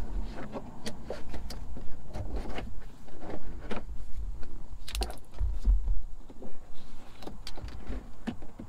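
Irregular clicks, knocks and low thumps of hands working bungee cords around a Jeep's roll bar while fastening a fabric roof sunshade.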